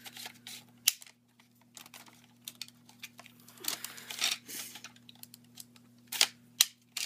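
Plastic clicks, knocks and rustling from an airsoft rifle and its foregrip being handled while the foregrip is forced at the rail; it won't go on.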